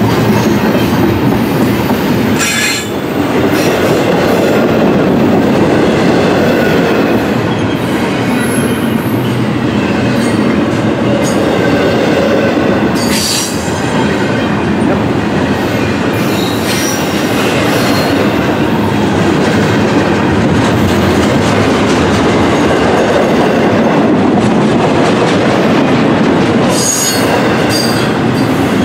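Double-stack intermodal container train rolling past: a steady loud rumble and rattle of steel wheels on the rails, with three sharp clanks, one a few seconds in, one about halfway and one near the end.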